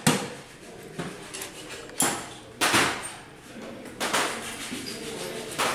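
Sharp metal clinks and knocks from handling the long rods of a cylinder installing tool against the studs of a scooter engine while a cylinder base gasket is fitted: about five separate knocks spread out over a few seconds.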